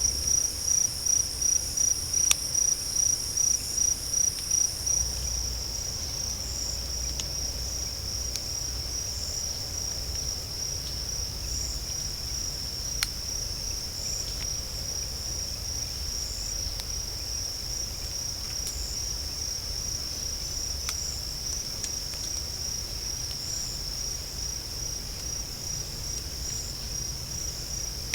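Night insects chirring in a steady, continuous high trill. For the first five seconds a second, higher insect call pulses over it about twice a second. There are a few faint sharp clicks, the most distinct about 13 seconds in.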